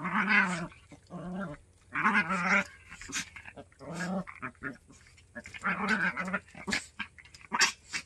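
Two small dogs play-fighting, growling in about five short bouts over the first six seconds, with a couple of short sharp sounds near the end.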